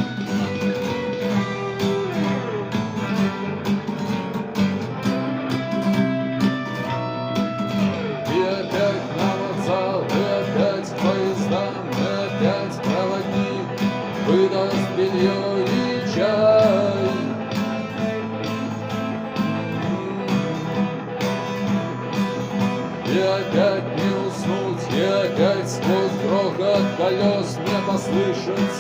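Guitar music: a rock song played on guitar over a steady accompaniment, with a melody line of short sliding, bending notes in two passages.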